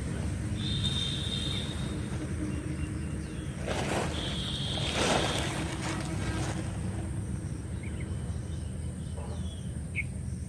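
Outdoor ambience: a steady low rumble with a louder gust of noise about four seconds in, and a few short, high whistled calls, the last a brief chirp near the end.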